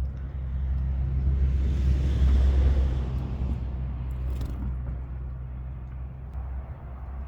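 A vehicle passing: a low engine rumble that swells to its loudest about two and a half seconds in and then fades, over a steady low hum.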